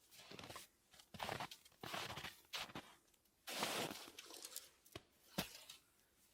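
Irregular rustling and crunching handling noises, one longer stretch about halfway through, then two sharp clicks near the end.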